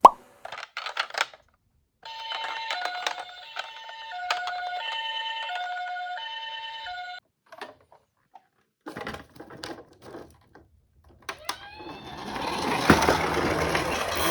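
Toy ambulance's electronic siren sounding a two-tone hi-lo pattern for about five seconds, after a few sharp clicks. Near the end come rising tones and a louder rushing noise.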